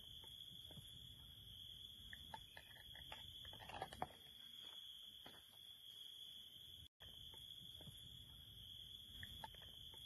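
Near silence: quiet outdoor ambience with a steady high-pitched hum and a few faint clicks and taps, a small cluster of them about four seconds in. The sound cuts out for an instant about seven seconds in.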